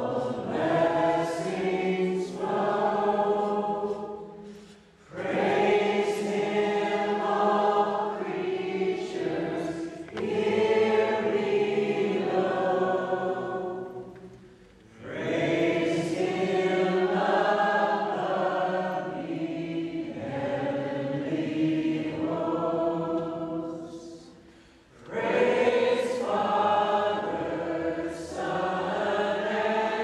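A group of voices singing a worship song together, in long phrases of about ten seconds, each fading before the next begins after a brief break.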